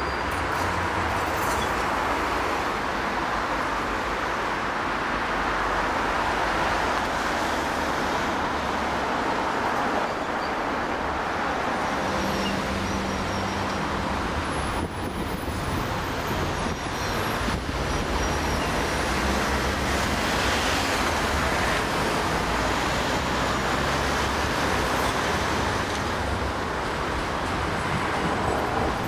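Steady road traffic, cars and vans passing, on a road alongside a tram line. A Bombardier Flexity Swift tram draws away at the start, and another approaches near the end.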